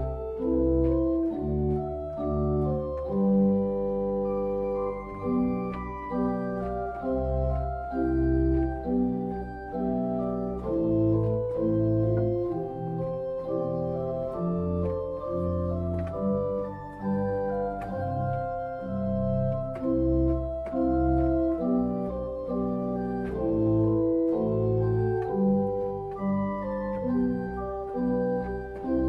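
Church organ playing a slow piece in several voices, with held notes stepping over a deep, sustained bass line.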